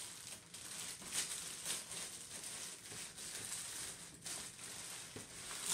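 Plastic packaging rustling and crinkling as the robot vacuum's auto-empty base is unpacked, with many small ticks and a louder crinkle near the end.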